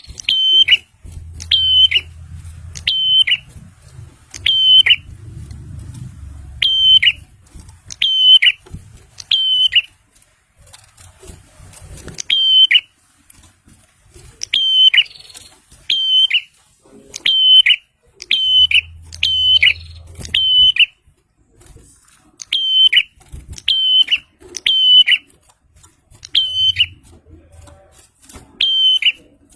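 Prinia (prenjak) calling: a loud, sharp, high note with a hooked pitch, repeated about once a second in runs with short gaps.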